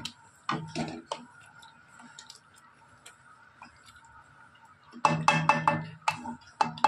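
Wooden spoon knocking and scraping against a metal pan of thick curry: a few sharp taps in the first second, then a dense run of clatter about five seconds in, with a faint steady hum underneath.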